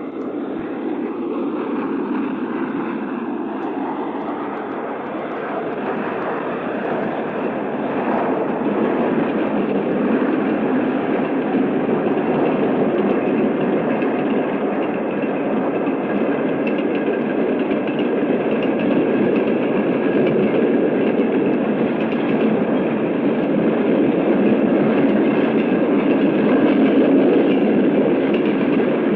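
A train rolling past with a dense, steady rumble of wheels on rail that slowly grows louder. It is heard through an old vinyl sound-effects recording with no high end.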